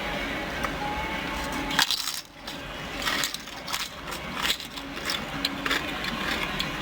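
Crunching of corn chips being bitten and chewed close to the microphone: a sharp crack, then a run of irregular crackly crunches.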